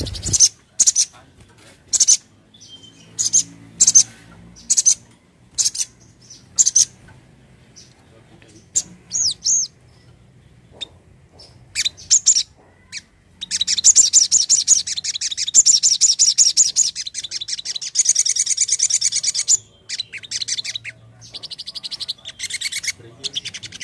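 Sogon sunbird calling: sharp, high 'cret' chirps spaced out over the first half. About halfway through comes a fast, unbroken trill lasting about six seconds, then more chirps.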